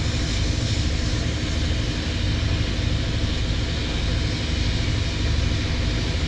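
Steady low mechanical rumble with a constant hum, a machine or motor running without change.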